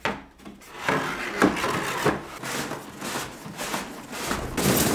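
Cardboard packaging being opened by hand: the flaps and inner cardboard of a large box rubbing, scraping and knocking in irregular handling noise, louder and denser near the end.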